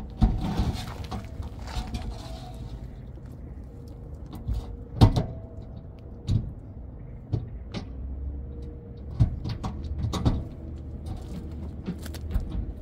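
Hand tools clicking and knocking at irregular intervals while a steel hydraulic line is fitted and tightened onto an HWH slide-out cylinder, the loudest knock about five seconds in, over a faint steady hum.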